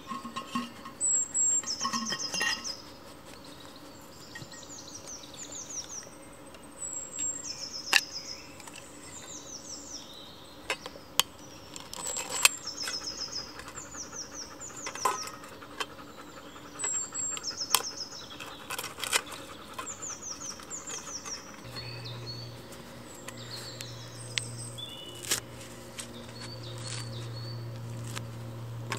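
Woodland songbirds singing, one repeating a short, high, descending phrase every few seconds, with occasional sharp clicks and knocks. A low steady hum comes in about two-thirds of the way through.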